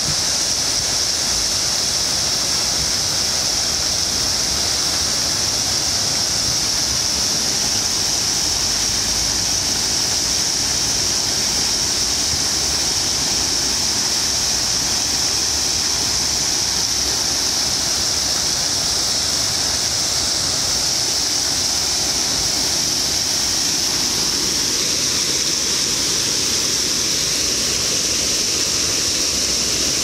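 Water fountain: rings of vertical jets shooting up and splashing back into the pool, a steady rush of falling water.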